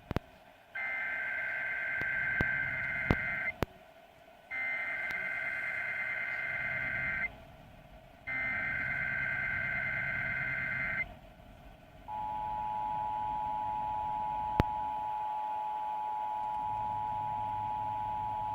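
Emergency Alert System SAME header: three bursts of screeching digital data tones, each about three seconds long with short gaps between, marking the start of a Required Monthly Test. About twelve seconds in, the steady two-tone EAS attention signal begins and holds. A few sharp clicks of radio static break through the bursts.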